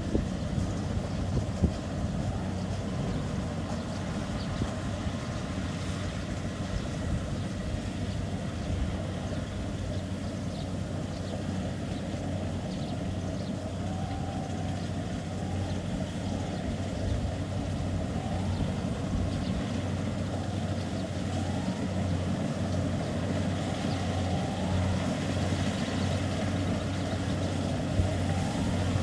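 Kubota DC70 rice combine harvester running steadily, a constant low engine drone with machinery noise over it.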